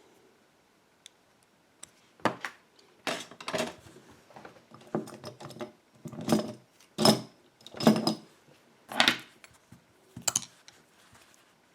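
Metal tool scraping and clicking against the retaining clip on the back of a lock cylinder's plug as it is pried off: a series of short, sharp metallic scrapes and clicks after a quiet first two seconds.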